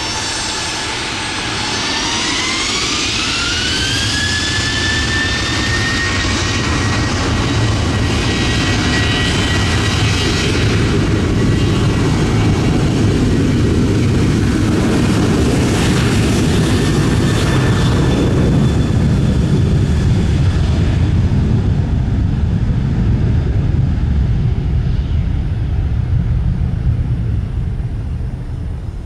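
Boeing 737-800 jet engines spooling up for takeoff: the fan whine rises in pitch over the first few seconds and then holds steady. A loud jet roar builds as the aircraft rolls and then fades near the end.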